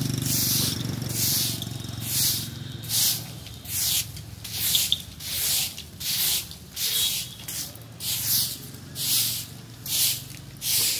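Rhythmic rasping strokes, about one every three-quarters of a second, like a hand tool worked back and forth on a hard material, over a steady low hum.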